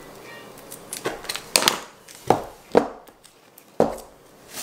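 Knife cutting leather along a pattern on a cutting board: about five sharp chopping strokes at an uneven pace.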